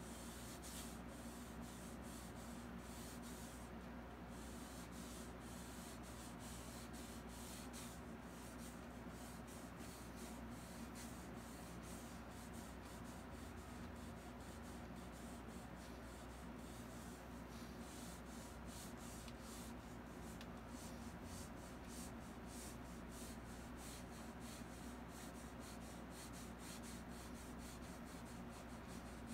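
Faint, irregular scratching of a fine paintbrush dabbing oil paint onto canvas, over a steady low hum.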